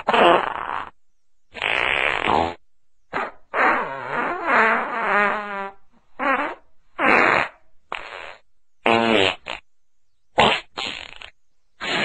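A string of about ten fart sounds one after another with short gaps between them, mostly short, with one long wavering fart lasting a couple of seconds a few seconds in.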